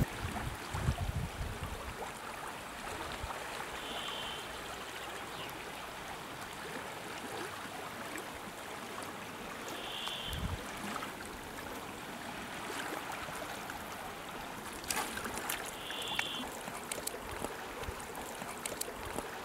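Small river flowing, a steady rush of water. A short high chirp sounds three times, about six seconds apart, and a few faint sharp clicks come around three-quarters of the way through.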